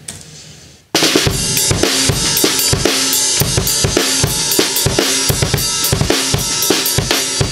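Drum kit played in a steady groove, starting about a second in, heard through a camera microphone. The muted kick drum has the Click-Kick mounting brackets fitted but no click membrane, so its strokes have no added click attack. Snare and cymbals sound over it.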